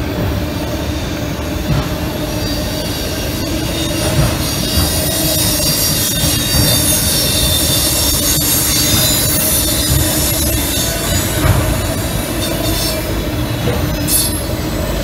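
Freight train of autorack cars rolling past, the wheels squealing high and steady over a continuous low rumble; the squeal is strongest around the middle.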